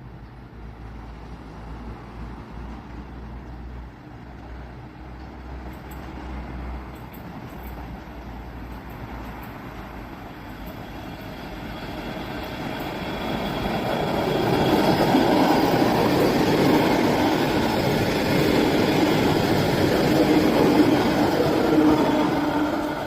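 Electric multiple-unit train (BDZ class 32, Riga-built ER25) approaching and running past, its rolling noise growing louder from about halfway through, with steady tones over it, and easing off near the end.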